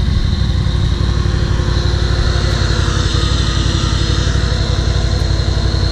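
ATV engine running steadily at idle.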